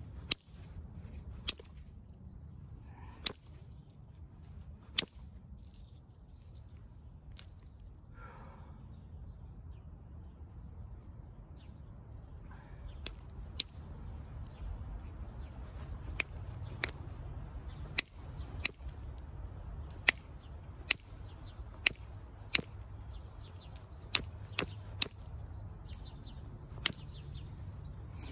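Flint knapping: a copper-tipped billet striking the edge of a stone knife blade, each blow a sharp click as a flake comes off. A few scattered strikes come in the first few seconds, then a pause, then a run of strikes about one a second in the second half.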